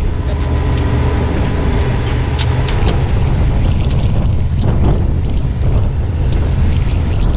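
Rock-crawler buggy's engine running as it drives along a wet dirt road, with a steady low drone and scattered sharp ticks and spatters throughout.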